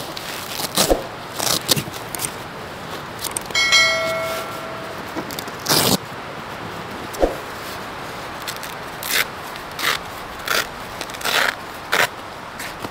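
Nylon tent carry bag being handled, its webbing straps and buckles unfastened: a run of short rustles, scrapes and clicks. A short ringing tone sounds about four seconds in.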